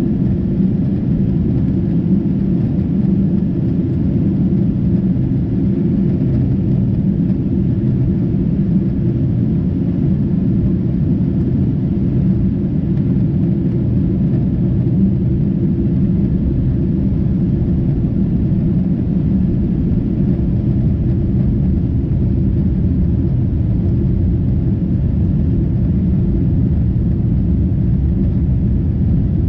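Steady low cabin drone of a Boeing 747-8 in flight, the engines and airflow heard from a window seat inside the cabin.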